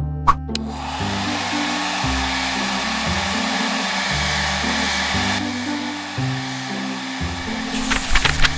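A steady rushing, blowing noise, like a hair dryer, runs over background music with a low bass line; a couple of sharp clicks come at its start and several more near the end.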